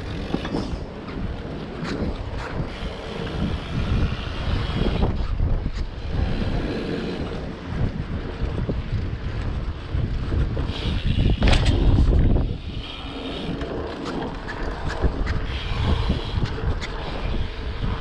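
Wind buffeting the microphone: a heavy low rumble that swells and fades, with a few sharp knocks, the loudest about eleven and a half seconds in.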